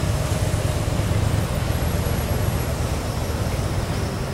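Steady low rumble of street traffic, with no speech over it.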